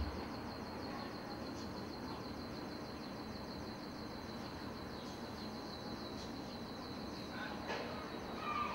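Outdoor ambience: a steady low background noise with a fast, even, high-pitched pulsing throughout, and a few short chirps near the end.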